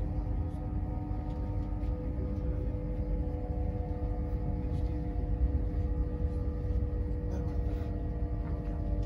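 Passenger train running at speed, heard from inside the carriage: a steady low rumble from the wheels and track, with a steady droning hum from the train's drive.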